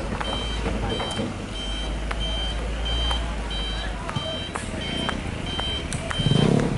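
A truck's reversing alarm beeping about twice a second over the low rumble of a truck engine during the recovery of a crashed truck. The rumble drops away about four seconds in, and a louder burst of low noise comes near the end.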